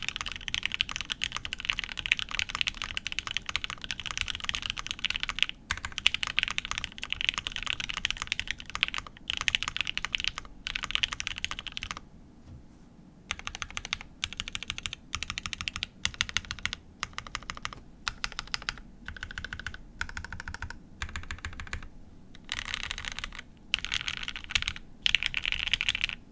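Fast typing on a custom mechanical keyboard: a polycarbonate Tengu with lubed Gateron Ink linear switches on a polycarbonate plate and GMK keycaps, giving soft, dense keystroke clicks. The runs of keystrokes break off briefly several times, with a longer pause about twelve seconds in.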